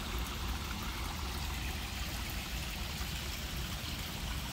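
Steady rush of running water from a stream and waterfall, with a low rumble underneath.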